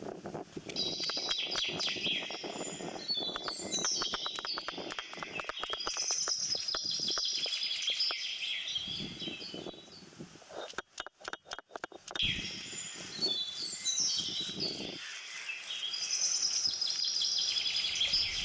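Birds chirping and calling, with many quick clicks or knocks beneath them and a short break about two-thirds of the way through.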